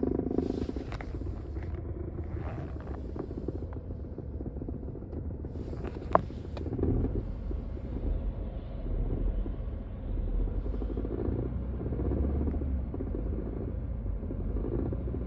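BMW 328i running with a steady low exhaust rumble, broken by a few light clicks and one sharp knock about six seconds in. The owner takes the knocking for the newly fitted catalytic converter touching the car's body.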